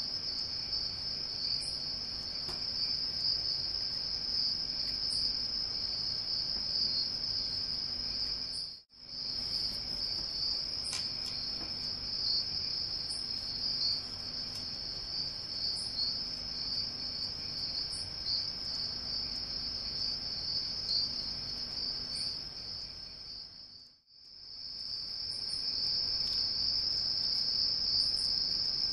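A steady, high-pitched insect-like trill, like a cricket, which cuts out briefly twice: once about nine seconds in, and again near twenty-four seconds, when it fades back in.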